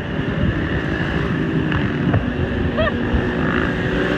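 Wind buffeting the microphone outdoors, a loud, gusting rumble, with a few short high chirps about three seconds in.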